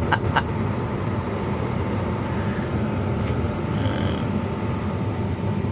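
Medium bus driving along, a steady rumble of engine and road noise heard from inside the cab.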